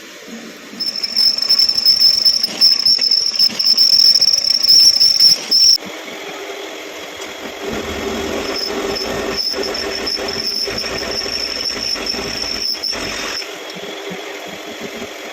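A machine running with a steady high-pitched whine, loudest in the first half and cut off suddenly about six seconds in. The whine returns more quietly over a lower steady hum in the second half.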